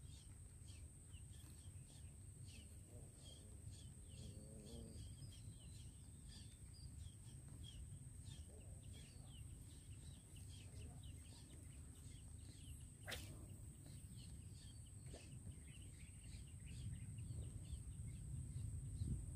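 Near silence: faint outdoor ambience with many faint, short bird chirps, a steady thin high-pitched whine and a low rumble that grows a little near the end. A single sharp click about thirteen seconds in.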